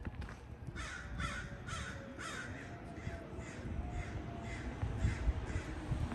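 A crow cawing repeatedly: a run of about ten short caws, roughly two a second, growing fainter toward the end.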